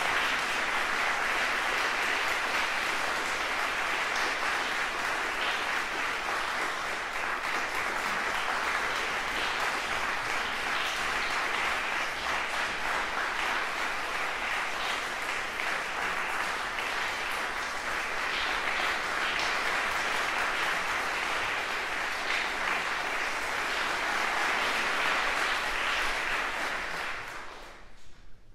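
Audience applauding steadily, a curtain call that brings a performer back for an encore. The applause dies away quickly near the end.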